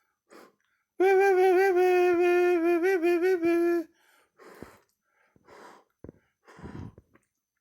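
A voice holds one wavering note for about three seconds, starting about a second in and stopping abruptly, followed by faint breathy sounds.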